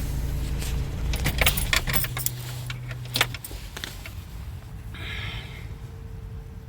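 Keys jangling with a run of sharp metallic clicks, over the low steady running of an idling engine; the low rumble drops away about three and a half seconds in. A short electronic beep follows about five seconds in.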